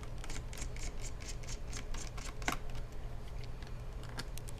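Light clicks and ticks of a small Phillips screwdriver and screws being worked out of a laptop's plastic bottom case, with a sharper click about two and a half seconds in, over a steady low hum.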